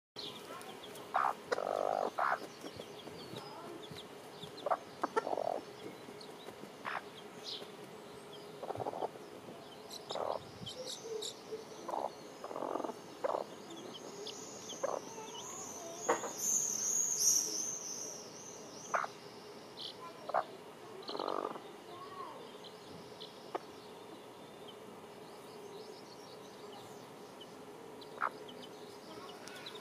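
Hen and chicks in a dust bath: short, low clucks from the hen and brief chick peeps, scattered every second or two. A high warbling call lasts about two seconds around the middle.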